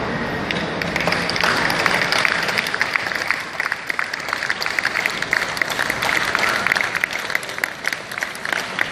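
Audience applauding, a dense patter of many hands clapping that builds up about a second in and keeps going.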